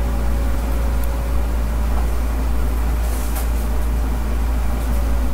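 Steady low rumble and hum of background noise picked up by the microphone, with a few faint clicks.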